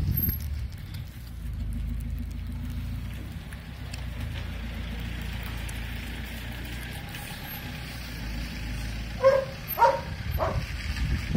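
Steady low rumble of a motor vehicle. Near the end, three short barks from a dog, about half a second apart.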